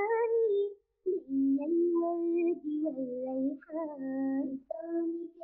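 Unaccompanied high voice singing a slow melodic line in short held phrases, with brief silences between them.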